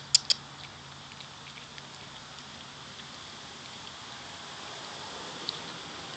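Cat chewing a raw chicken wing: two sharp crunches right at the start, then scattered faint crackles of bone and gristle, and another crunch about five and a half seconds in.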